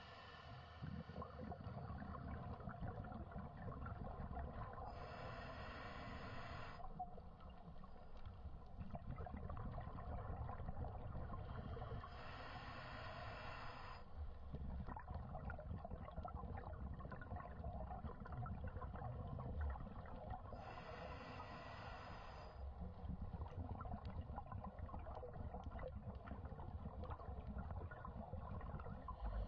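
Scuba diver breathing through a regulator, heard underwater: a hiss of about two seconds comes three times, roughly every eight seconds, over a steady low rumble and gurgling of exhaled bubbles.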